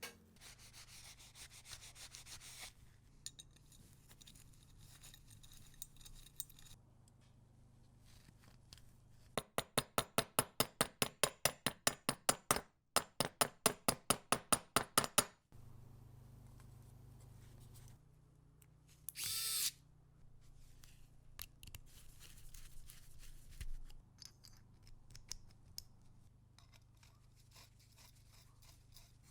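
Hand work on the revolver's parts: rubbing and scraping, with a run of about twenty quick, even strokes in the middle and a short hiss a few seconds later.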